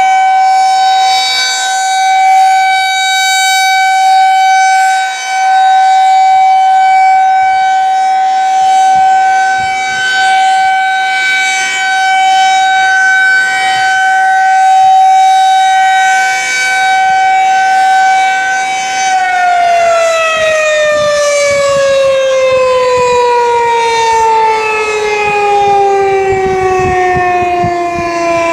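Federal Signal 2001-SRNB outdoor warning siren sounding a steady single tone, swelling and fading every few seconds as its head rotates, during its monthly test. About two-thirds of the way through it switches off and winds down, its pitch falling steadily.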